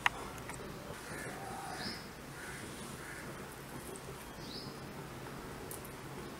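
Birds calling in the background: a sharp short call right at the start, then a few brief high chirps and some softer calls, over a faint steady background.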